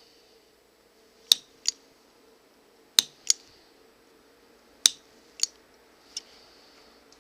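Hand-sewing leather: sharp, light clicks of the needle, mostly in pairs a third to half a second apart, every second and a half or so, with a faint hiss of thread drawn through between some of them.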